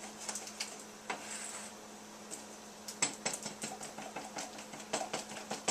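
A spoon stirring lemon juice into beaten eggs and sugar in a mixing bowl, with scattered light clinks and scrapes against the bowl that grow quicker and more frequent about halfway through.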